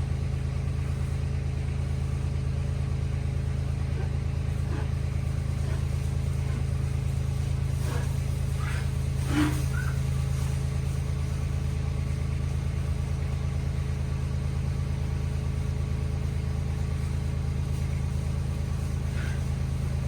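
A machine or engine running steadily at a constant speed, a loud, even low drone, with a few brief faint higher sounds about halfway through.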